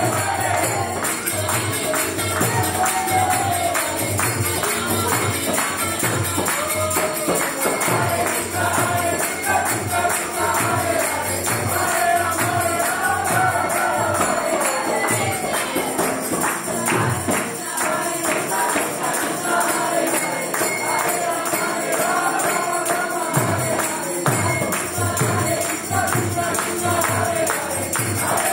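Kirtan: group chanting with harmonium accompaniment, a mridanga drum and jingling hand percussion keeping a steady beat.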